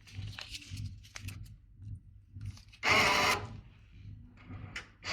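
Banknote acceptor of a coffee vending machine drawing in a paper note: faint rustling and light clicks, then a short motor whir about three seconds in, with another whir starting at the very end.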